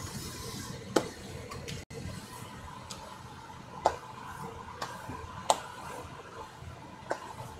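A pot of chicken soup simmering, with a few sharp taps or ticks at irregular intervals over a steady low background.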